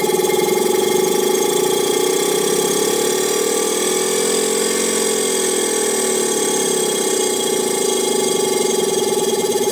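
DWM Copeland reciprocating refrigeration compressor running on a variable frequency drive, a steady mechanical drone whose pitch rises slightly and falls back about halfway through.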